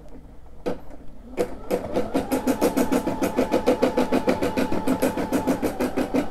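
Brother SE600 embroidery machine starting to stitch a design. A couple of slow, separate needle strokes give way about a second and a half in to a fast, even run of stitches over a steady motor hum.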